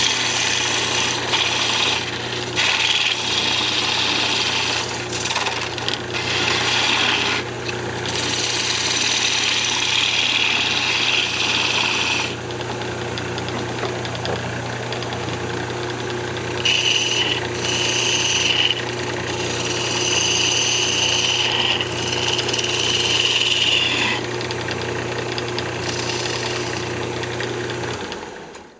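Wood lathe running with a steady motor hum while a hand-held turning tool cuts the spinning box blank in several separate passes, each a loud hiss of shavings coming off. Near the end the lathe is switched off and the hum dies away.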